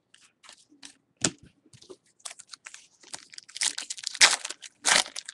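Trading-card pack wrapper crinkling and cards being handled, a run of short crackles and clicks that is densest and loudest in the last two seconds.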